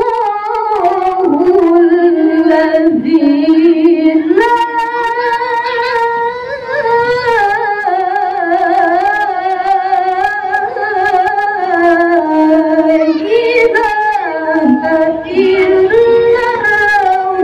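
A woman reciting the Quran in the melodic qiraah style into a microphone: long held notes with wavering melismatic ornaments, her voice stepping up to a higher pitch about four seconds in.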